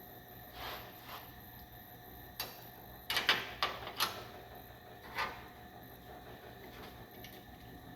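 Hand tools and metal parts being handled: a few scattered knocks and clinks, with a quick cluster of clatter about three seconds in and another knock about five seconds in.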